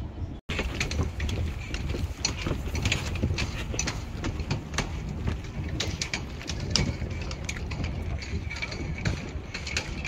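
Footsteps clicking irregularly while walking across a footbridge, over wind rumbling on the microphone. The sound cuts out for a moment just after the start.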